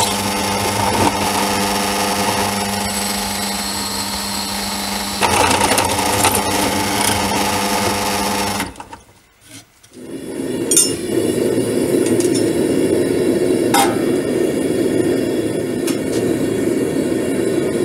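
Electric drill running steadily as it bores through a forged steel hook; it stops about nine seconds in. After a short lull, a gas forge burner takes over with a steady low rushing noise, with a couple of sharp metal clinks.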